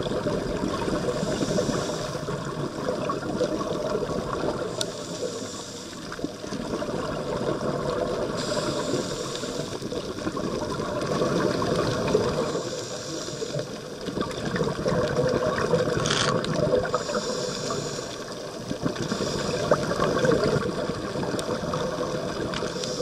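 Scuba divers breathing through their regulators underwater: a hissing inhalation alternates with a bubbling rush of exhaled air, one breath every few seconds.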